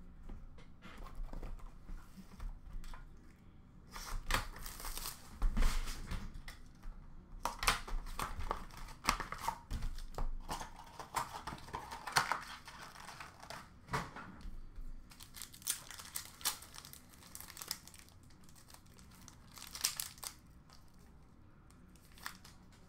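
Wrapper of an Upper Deck Artifacts hockey card pack being torn open and crinkled, in irregular bursts of rustling and tearing from about four seconds in until near the end.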